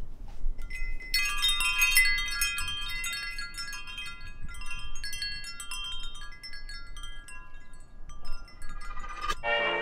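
Metal-tube wind chime ringing: many clear tones struck in quick succession about a second in, overlapping and then dying away slowly as fewer tubes are struck.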